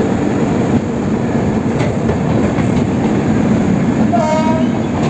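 Coaches of a passing passenger express rolling close by on the adjacent track: a steady rail rumble with wheel clatter. A short, high tone sounds briefly about four seconds in.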